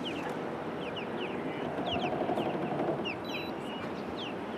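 Birds calling in many short, falling chirps over a steady rushing noise of water, which swells a little in the middle.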